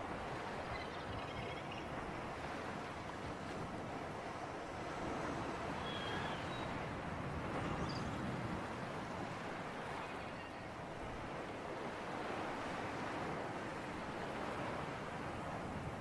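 Sea surf and wind: a steady rushing that slowly swells and eases, with a couple of faint high chirps partway through.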